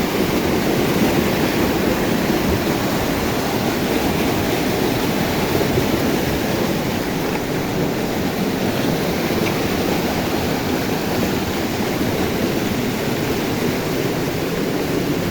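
Fast-flowing river water rushing in a steady, unbroken wash.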